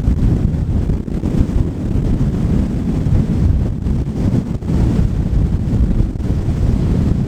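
Strong storm wind buffeting the microphone: a loud, continuous low rumble that rises and falls with the gusts.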